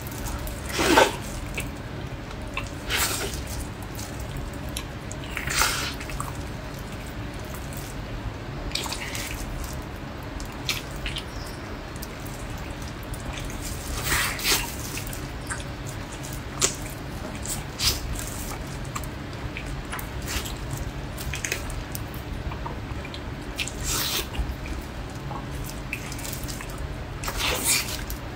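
Eating of braised pork knuckle: scattered wet, sticky smacks and chewing as the gelatinous skin and meat are bitten, pulled and chewed, a few seconds apart, over a low steady hum.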